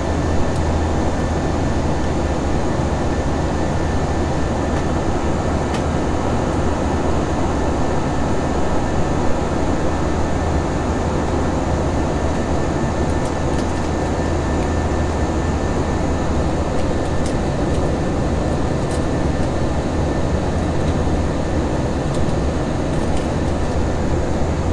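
Steady in-cabin noise of an Airbus A321-231 climbing after takeoff: the rush of airflow over the fuselage and the low drone of its IAE V2500 turbofans, heard from the front of the cabin by the window, with a faint thin high whine running through it.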